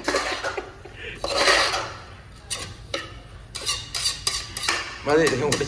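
A spoon clinking, knocking and scraping against the inside of an aluminium pressure cooker as onions are stirred and turned over in it: a run of irregular clinks, with a longer scrape about a second in.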